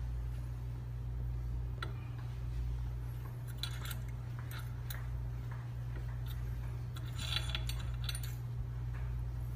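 Steel gauge parts, a thread ring gauge and small gauge pins, being handled and set on a measuring instrument's steel table, giving light metallic clicks and clinks, a cluster about halfway through and another near the end. A steady low hum runs underneath.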